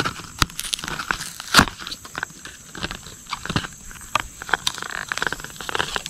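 Clear plastic blister pack of a fishing lure being pried and torn open by hand: irregular crackling and crinkling of stiff plastic, with a few louder sharp snaps.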